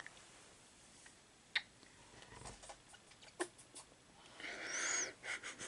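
Faint latch hook work: a few small sharp ticks of the metal hook and its latch, then a short scratchy rustle of yarn being pulled through the canvas mesh near the end.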